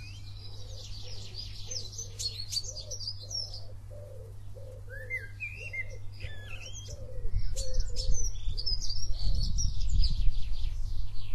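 Small birds chirping and trilling over a row of short low notes repeated about three times a second, with a steady low hum underneath. From about seven seconds in a low rumble becomes the loudest sound.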